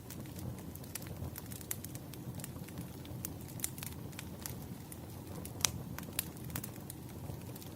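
Wood fire crackling: a steady low rumble of burning logs with irregular sharp pops and snaps, one louder pop a little past the middle.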